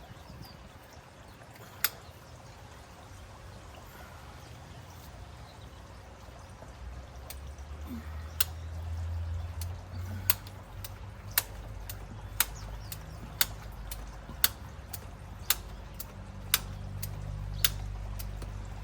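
2-inch hand pipe cutter being squeezed through PVC pipe, its ratchet clicking sharply about once a second, over a low steady hum.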